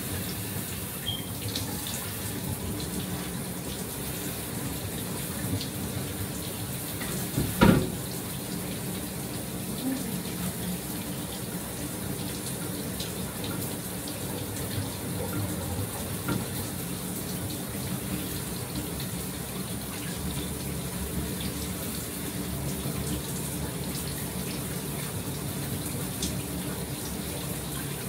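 Shower water running steadily, with a single loud thump about seven or eight seconds in.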